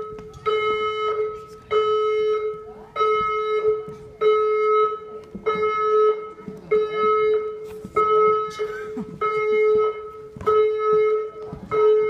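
Building fire alarm sounder beeping a steady mid-pitched tone, about 0.6 s on and 0.6 s off, repeating evenly. This is the slow beep-beep pattern of the Australian alert tone, the stage that warns occupants before an evacuation whoop.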